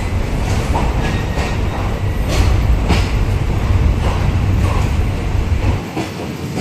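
Diesel-hauled passenger train pulling out of the station, its engine rumbling deeply while the wheels knock and clack over rail joints and points every half second or so. The deep rumble drops away abruptly near the end, leaving the clatter of the passing coaches.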